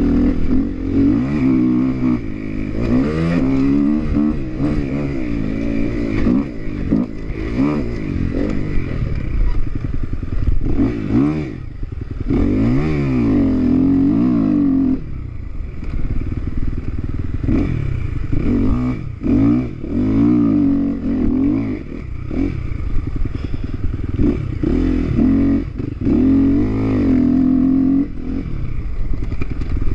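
Motocross dirt bike engine at hard throttle, its pitch climbing and dropping again and again as the rider accelerates and shifts, with a few stretches held steady at high revs.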